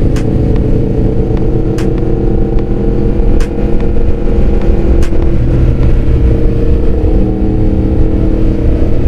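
Yamaha MT-10's inline-four engine running steadily while the motorcycle cruises at about 60 km/h, with wind rumble on the bike-mounted microphone. The engine note shifts slightly about five seconds in.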